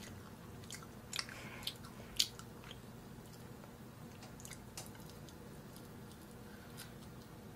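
A person eating braised chicken: a few sharp clicks of chopsticks against a plate and soft chewing, mostly in the first two seconds or so, over a faint low hum.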